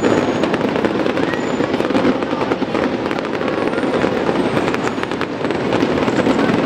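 Aerial fireworks bursting in a continuous barrage, a dense crackle of many small sharp pops close together.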